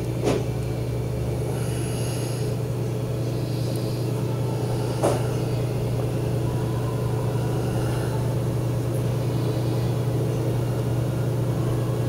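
Steady low mechanical hum of room machinery, even throughout, with two faint clicks, one just after the start and one about five seconds in.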